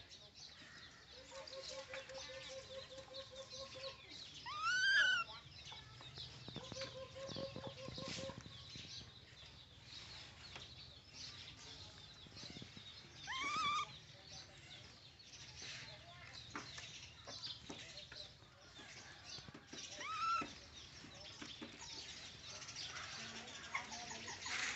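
Baby monkeys giving high, arching squeals: three loud ones well apart, about five, thirteen and twenty seconds in, the first the loudest. Twice in the first eight seconds, a steady, rapidly pulsing call runs for two or three seconds, with faint scattered clicks throughout.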